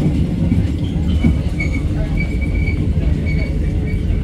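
Hakone mountain electric train running on a curving track: a steady low rumble of wheels on rails, with short, high wheel squeals coming and going from about a second and a half in as the wheels work through the curve.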